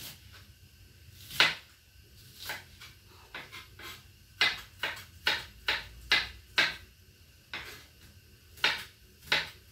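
Kitchen knife chopping an onion small on a cutting board: irregular sharp knocks, some single and some in quick runs of several.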